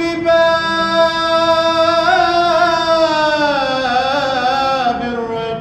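A solo male voice singing an Arabic Islamic religious chant (ibtihal) in one long melismatic held note. The note lifts slightly about two seconds in, slides slowly down over the next few seconds, and settles on a lower note near the end.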